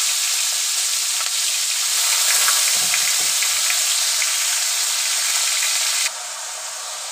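Cut water lily stems sizzling hard in hot oil in a kadai just after being added, with scattered small crackles. The sizzle drops to a quieter level about six seconds in.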